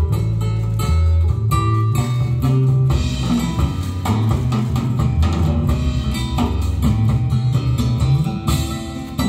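Music with guitar, bass and drum kit playing at a steady beat.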